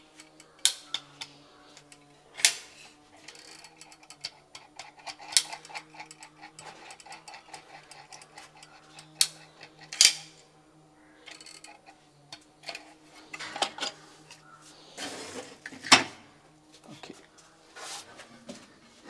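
Caulking gun squeezing out silicone sealant, its trigger and plunger rod giving irregular sharp metallic clicks a second or few apart over a faint steady hum. A brief noisier rustle comes near the end.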